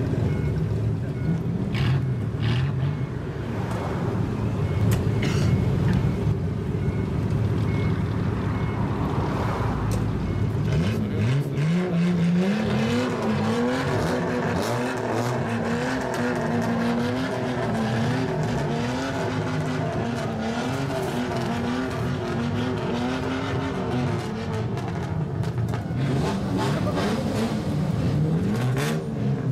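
Car engine with a straight-pipe exhaust idling, then revved up about ten seconds in and held at raised revs with small repeated rises and dips of the throttle for some twelve seconds. It falls back and is revved again near the end.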